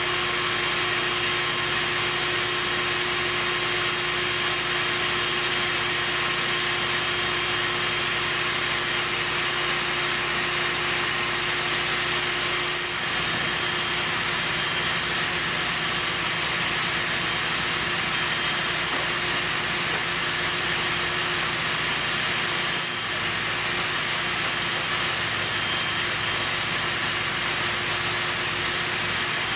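A motor running steadily with a constant hum and hiss, dipping slightly twice.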